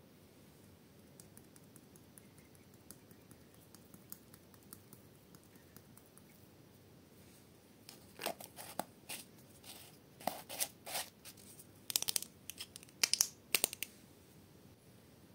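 Thin plastic crackling and crinkling in several short spells, starting about eight seconds in and stopping shortly before the end, as a plastic slime container is handled; only faint ticks before that.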